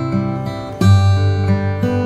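Background music: an acoustic guitar strumming chords, with a fresh strum a little under a second in.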